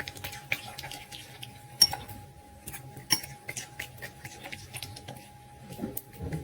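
A dog eating from a bowl: a run of small crunching clicks, with two sharp clinks of the bowl about two and three seconds in.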